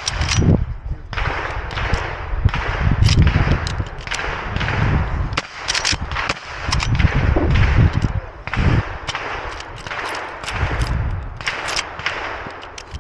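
Henry Big Boy X lever-action rifle in .38 Special fired in a string of shots at an uneven pace, over a constant low rumbling noise.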